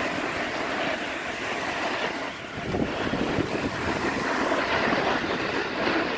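Steady rushing hiss of wind on the microphone mixed with the scrape of snow under a board or skis carving downhill at speed.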